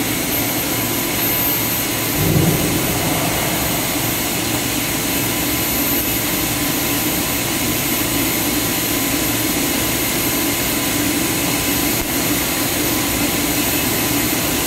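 PP meltblown filter cartridge machine running, with a steady rush of air from its suction blower, a steady hum and a high whine. A brief thump comes about two seconds in.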